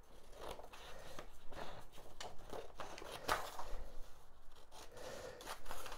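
Scissors snipping slits into a sheet of drawing paper: a series of short, irregular snips, with the paper rustling as it is handled.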